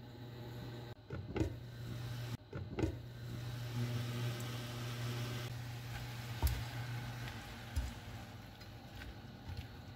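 Steady low hum of the cooktop under a pan, with a few clinks and knocks and, later, a spatula stirring and scraping bean sprouts, shrimp and chili paste in the pan.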